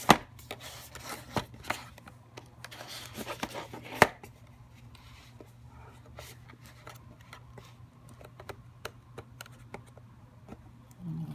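Kitchen knife scraping and ticking against a cardboard box as it slits open the sealed end flap, with small handling clicks of the box. Two sharper knocks stand out, one at the start and one about four seconds in.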